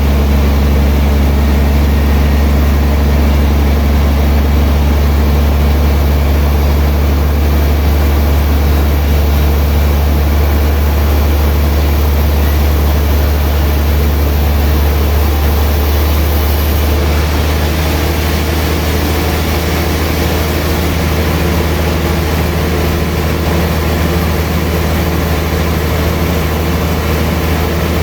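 Sawmill machinery running steadily with a deep, even hum.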